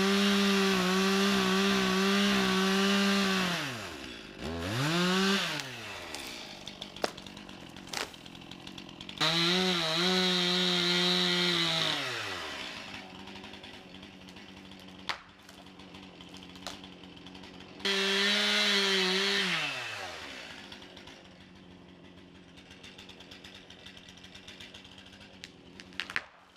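Stihl two-stroke chainsaw cutting at full throttle, revving down to idle between three cuts, with a short blip of the throttle in between. A few sharp cracks or snaps come between the cuts.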